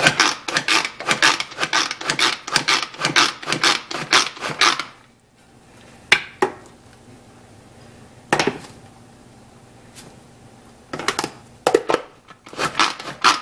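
Pull-cord manual food chopper chopping onion pieces: repeated cord pulls spin the blades in a fast clicking rattle for about five seconds, then a pause with a few single clicks, and another run of fast pulls near the end.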